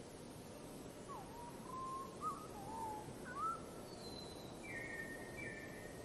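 A bird's whistled song: a string of short whistles that swoop up and down, followed by a few higher, flatter notes near the end, over a steady background hiss.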